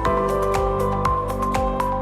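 Background music: layered sustained tones under a quick run of plucked or struck notes, several a second.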